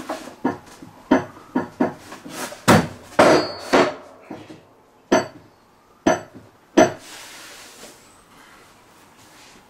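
Thick pine scaffold boards knocked and shuffled against each other and the bench as they are butted edge to edge, a run of irregular sharp wooden knocks over the first seven seconds. A brief scratchy rubbing follows.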